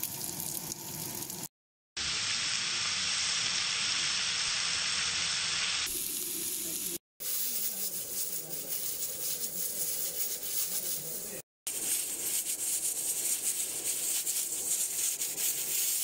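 Steady sizzling and hissing of cooking: pieces of fat frying in a metal pot and a pressure cooker on a fire venting steam. The hiss stops dead for three short gaps where separate clips are joined.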